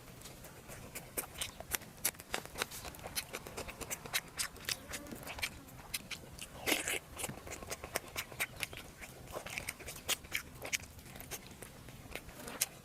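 Close-up chewing and biting of cooked pork: irregular wet clicks and smacks, several a second, with a brief louder crunch about halfway through.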